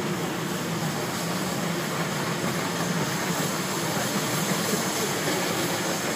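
Narrow-gauge steam train running, heard from an open passenger car: a steady, even rolling noise of the train moving along the track.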